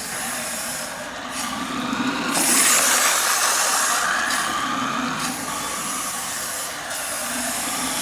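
Rastar 1/14 Ferrari RC toy car driving, its small electric motor running and its tyres rolling and rubbing on a hard surface. The sound is a continuous rough rolling hiss that grows louder and quieter in stretches of a second or two.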